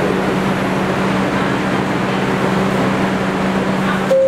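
Kawasaki R62 subway car standing in a station: a steady hum and rushing air from the car's idling equipment and ventilation. About four seconds in, a clear steady electronic tone starts, the first note of the door chime.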